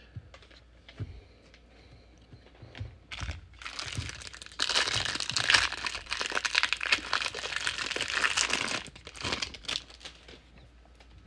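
A foil trading-card pack wrapper being torn open and crinkled: a few light taps of cards being handled, then about five seconds of loud crackling from roughly three and a half seconds in, dying away with a couple of small knocks near the end.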